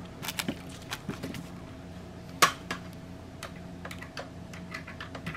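Scattered light clicks and taps from hands handling objects, with one sharper click about two and a half seconds in, over a faint steady hum.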